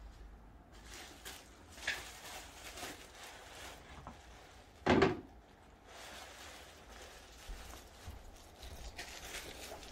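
Rustling and handling noises as household objects are picked up and moved, with one loud thump about five seconds in.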